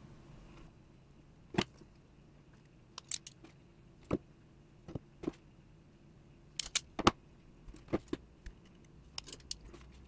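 Dupont pin crimping tool clicking as it is handled and squeezed shut on a pin: a scattered series of sharp metallic clicks, the loudest about seven seconds in.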